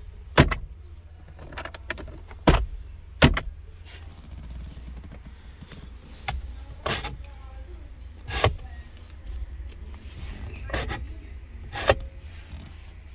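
Sharp plastic knocks and clacks from an Alfa Romeo Arna's interior trim as the glovebox lid and dashboard panels are handled, about seven separate hits at uneven intervals.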